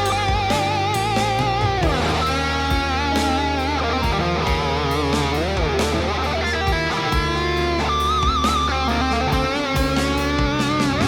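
Instrumental music: a lead electric guitar playing held notes with wide vibrato and occasional slides, over sustained low bass notes.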